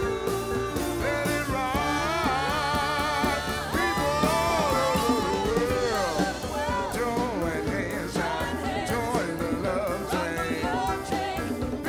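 Live soul band playing with singers: wavering vocal lines with no clear words over the band, with backing singers joining in.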